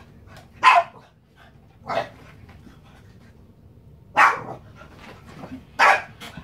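A Boston terrier barking at a remote-control toy car: four sharp single barks, spaced about one to two seconds apart.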